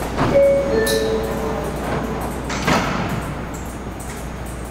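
R179 subway car door chime: two short tones, the first higher and the second lower, about a third of a second in. The car's sliding doors then close with a thump about two and a half seconds in.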